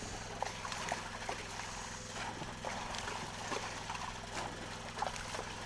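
Sea water splashing and slapping at the side of an outrigger boat, churned by a dense school of squid at the surface and a long-handled scoop net worked through them. There are many irregular short splashes and knocks.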